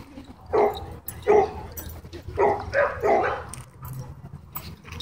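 Dog barking: about five loud, short barks in the first three and a half seconds.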